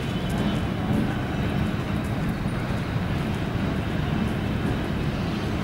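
Pakistan Railways diesel-electric locomotive HGMU 8220 running with a steady low rumble as it pulls slowly into the platform at the head of an arriving passenger train.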